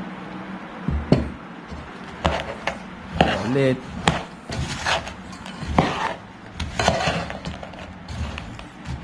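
A metal spoon scraping and knocking against a nonstick pan while stirring a chunky mix of broken biscuits and walnuts in chocolate syrup, in irregular strokes about once a second.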